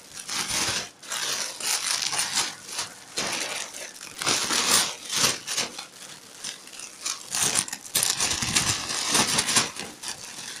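Thin plastic shopping bags crinkling and rustling in irregular bursts as packaged squishy toys are handled and put into them.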